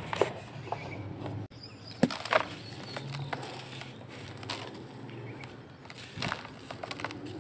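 Dry, dusty charcoal balls being cracked and crumbled by hand: crunching with sharp snaps, the loudest two close together about two seconds in, and powder trickling between them.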